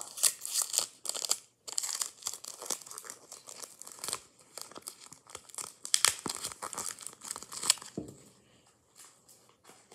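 Sticky tape and paper crinkling and tearing as they are handled and taped down, with irregular crackles and sharp snaps. It dies down about eight seconds in.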